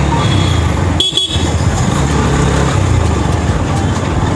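Motorcycle engine running steadily on the move in road traffic, with a short high horn toot about a second in.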